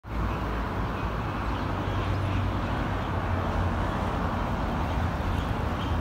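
Steady low rumble of road traffic, with a constant low hum.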